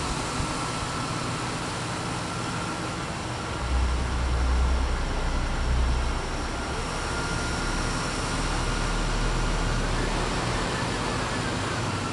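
Deep bass from a car audio system of twelve Sundown Nightshade 18-inch subwoofers, over a steady hiss. A low bass note comes in about three and a half seconds in, drops to a lower note at about six and a half seconds, and fades out near ten seconds.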